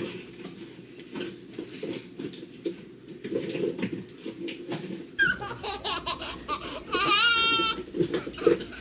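A young child's voice: a high, wavering squeal about seven seconds in, after scattered faint clicks and clatter over a low steady hum.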